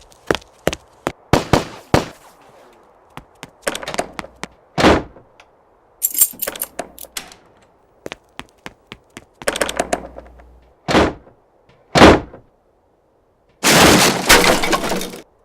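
A run of light taps, then a series of heavy thuds and knocks, the loudest about twelve seconds in, ending in a longer noisy crash of about a second and a half.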